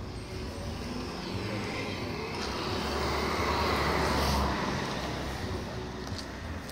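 A motor vehicle passing along the street, its engine rumble and tyre noise swelling to a peak a little past the middle and then fading, over general street noise.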